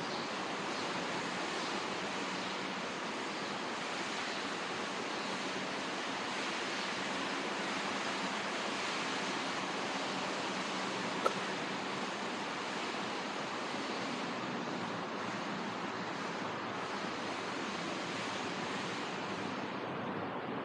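Steady, even background hiss of a large, empty covered train station hall, with a faint steady hum under it. There is one sharp click about eleven seconds in, and the hiss turns duller near the end.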